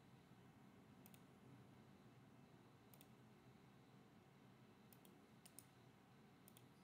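Near silence: faint room tone with a few soft computer mouse clicks spaced a second or two apart, some in quick pairs.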